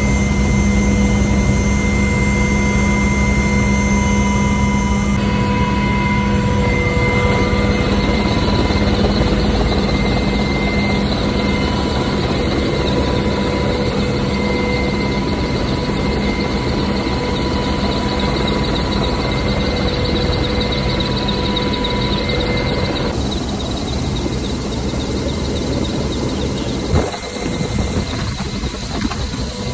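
Helicopter in flight, heard from inside the cabin: steady engine and rotor noise with several steady whining tones. The sound changes abruptly about five seconds in and again after about twenty-three seconds, and a short knock comes near the end.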